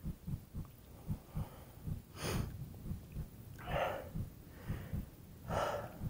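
A mountain biker breathing hard: three loud breaths about a second and a half apart. Under them runs a string of dull low thumps, about three a second.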